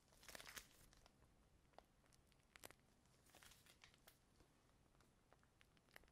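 Faint crinkling of a plastic piping bag being handled and squeezed to pipe whipped-cream rosettes. The crinkling comes in two short bursts about three seconds apart, with scattered soft clicks between them.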